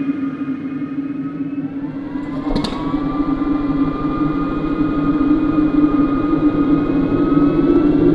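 Steady mechanical whine with a hum beneath it. A sharp click comes about two and a half seconds in, after which the whine rises slightly in pitch and grows gradually louder.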